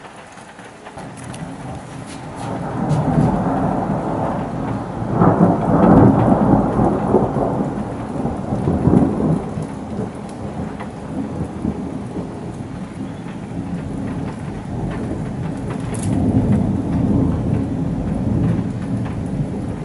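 Long rolling thunder from a thunderstorm, over steady rain. It builds over the first few seconds, is loudest about five to six seconds in and again near nine, then keeps rumbling with another swell near the end.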